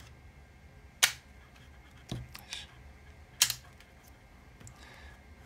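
Magnetic toolchanger coupling being handled: the 3D-printed tool plate and carriage plate click sharply together as their neodymium magnets pull them in. There are two sharp clicks, about a second in and a louder one about three and a half seconds in, with a few fainter handling clicks between.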